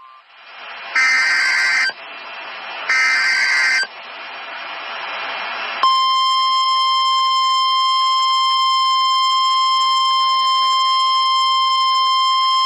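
Emergency Alert System severe thunderstorm warning: two short data bursts of the SAME header, each about a second long, with radio hiss between them. About six seconds in, the long steady single-pitched weather-radio alert tone begins and holds.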